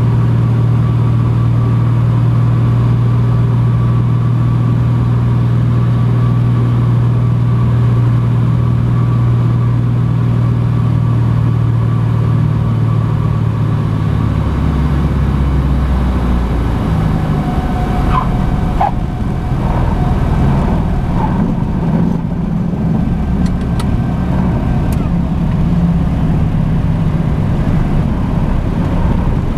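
Cessna Grand Caravan's turboprop engine and propeller, a steady loud drone on the landing approach. About halfway through the drone drops lower and turns rougher as the plane lands and rolls along the runway, with a few faint ticks in the second half.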